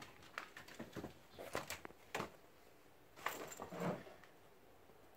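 Kittens' paws pattering and scuffing on a concrete floor as they run, in short irregular bursts, busiest about three to four seconds in.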